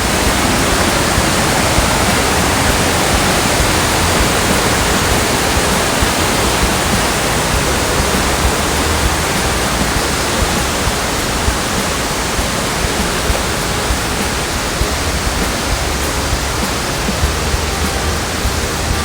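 Waterfall rushing: a loud, steady wash of falling water with no let-up.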